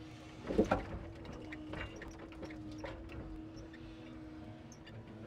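Truck-mounted timber crane working with a steady hydraulic hum; about half a second in, logs released from the grapple knock down onto the load, followed by small knocks and clicks as the crane moves.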